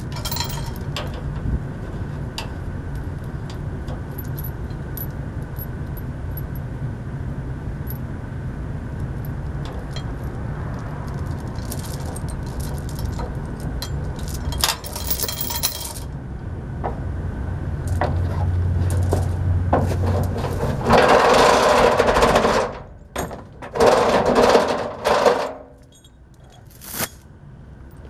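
Metal clinking and rattling, with scattered sharp clicks over a steady low hum. Several loud noisy bursts come near the end.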